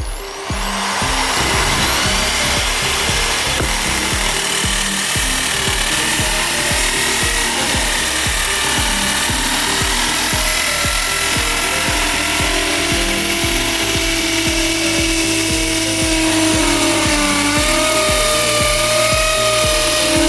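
Electric drill starting up and spinning up to speed about half a second in, then running steadily with a high whine. Background music with a steady beat plays underneath.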